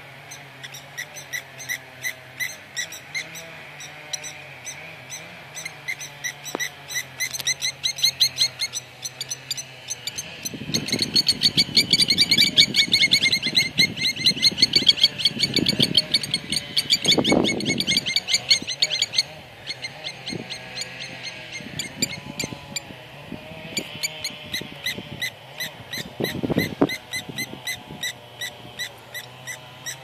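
Kiewiets (lapwings) calling in alarm: rapid, evenly repeated shrill calls, several birds together, rising to their loudest and most frantic from about ten to nineteen seconds in. It is the birds' defensive racket over a nearby nest and chick. A low rumbling runs beneath the calls during the loudest stretch.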